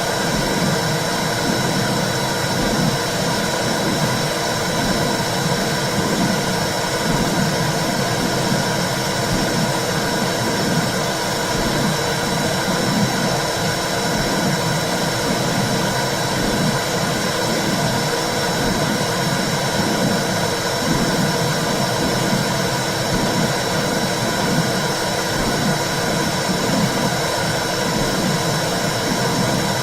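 Womb sound: a steady whooshing hiss with a low, rhythmic pulsing swell repeating throughout.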